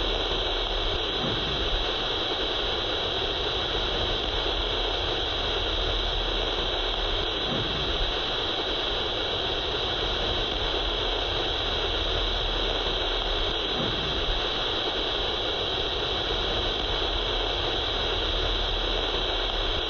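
Playback of an ultrasonic recording, brought down into hearing range with sound-processing software: a continuous, steady hiss with a strong high band and no pause. The recordist puts the original signal at about 27.4 kHz.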